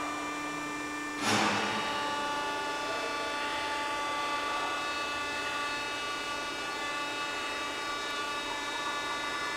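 Bridgeport CNC vertical milling machine running, its spindle head turning while the CNC control drives the table axes: a steady whine of several tones. A short, sudden burst about a second in marks a change in the motor sound.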